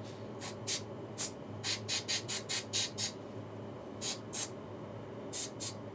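Short sharp hissing spray bursts from an aerosol can, about fourteen quick puffs in runs with a pause in the middle, over the steady whoosh of the laminar flow cabinet's fan.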